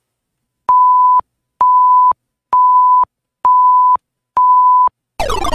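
Five-second countdown timer: five identical steady electronic beeps, one a second. Right after the last beep a falling sound effect starts, marking time up.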